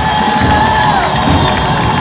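Music at a loud open-air celebration: a held note that slides down in pitch about a second in, over crowd noise.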